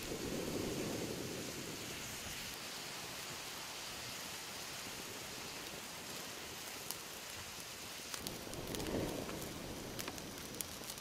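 Wood fire crackling under a wok, scattered sharp pops over a steady hiss.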